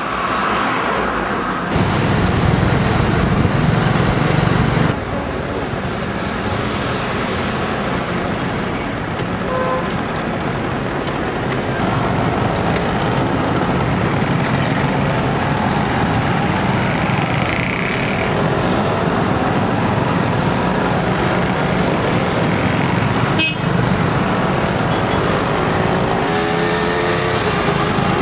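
Busy street traffic: car and motorbike engines running steadily, with a few short horn toots.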